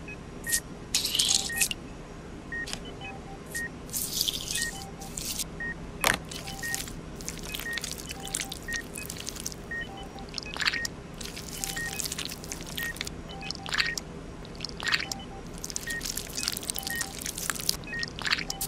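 Wet squelching and scraping as tweezers pull rubbery worms out and drop them into a small ceramic bowl, in short bursts. Behind it run short electronic beeps at two alternating pitches, about one a second, over a steady low hum.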